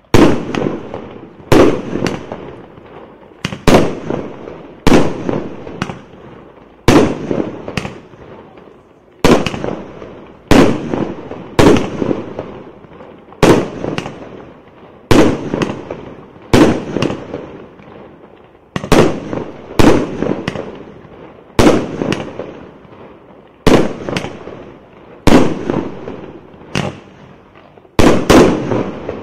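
A 1.2-inch, 19-shot fireworks cake firing its shots in sequence: a sharp bang about every second and a half, each trailing off in a fading rumble as the shell bursts.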